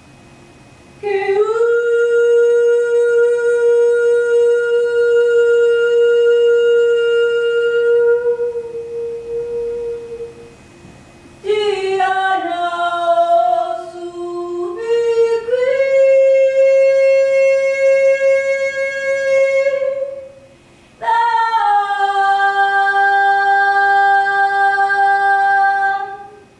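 A single voice singing unaccompanied in three long phrases: a note held for about nine seconds, a phrase that steps down and then back up to another long note, and a last long held note, with short breaths between.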